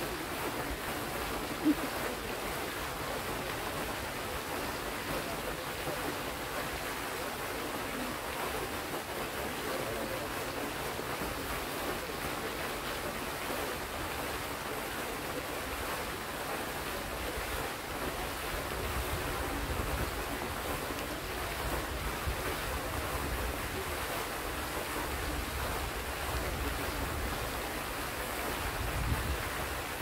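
Fountain jets in a pond sending up water that splashes back down, a steady rushing hiss of falling water. One short sharp tap comes about two seconds in, and low wind rumbles on the microphone come and go in the second half.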